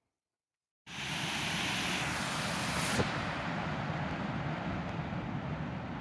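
Water rushing over a reservoir's stone overflow steps, with wind buffeting the microphone. It starts abruptly about a second in out of silence. About three seconds in there is a click and the high hiss drops back, leaving a steady rush.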